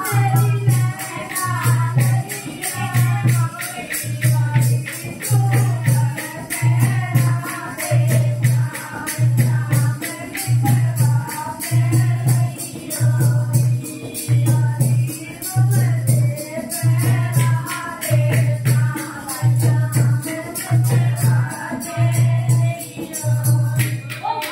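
A group of women singing a Hindi folk wedding song (bhat geet) together, with a deep drum beat about every one and a half seconds and fast jingling, rattling percussion keeping time.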